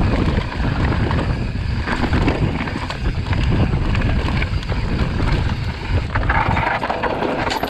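Wind buffeting the microphone while on the move: a loud, rough, low rumble without any clear engine note. A hissier rush rises near the end.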